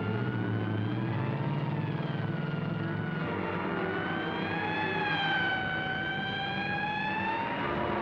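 A police car's mechanical siren wailing, its pitch slowly rising and falling, over the steady running of car engines in a chase.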